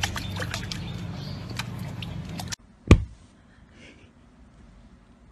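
Small splashes and clicks of a puppy lapping and pawing at water in a stone bowl, over a steady low hum. This stops suddenly about two and a half seconds in, followed by near quiet and one sharp thump.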